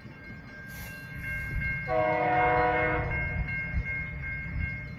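Diesel locomotive horn, a GE Dash 8-40CM's, sounding one chord of several notes for about a second, starting about two seconds in, over a steady low rumble.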